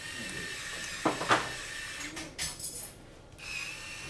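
Cordless electric precision screwdriver whirring as it drives a screw into a drone frame. The whine stops about a second in, followed by a couple of sharp clicks, and a shorter, higher-pitched whir comes near the end.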